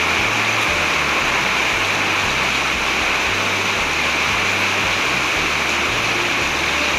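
Heavy rain pouring down in a steady, unbroken hiss, with a low bass line of background music under it.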